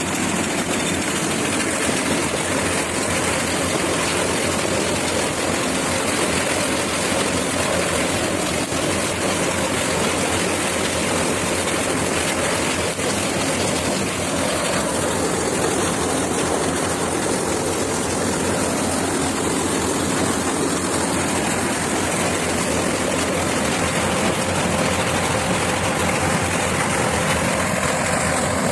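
Corn harvester running, its engine and machinery giving a steady, unbroken drone.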